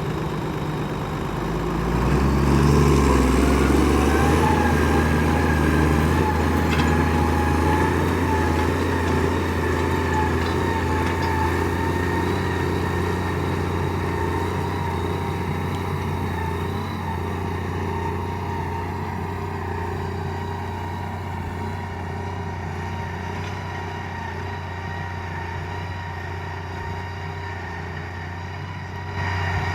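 Valmet 1780 tractor's diesel engine running under heavy load in heavy soil, a steady deep drone. It picks up and gets louder about two seconds in, then eases off slowly.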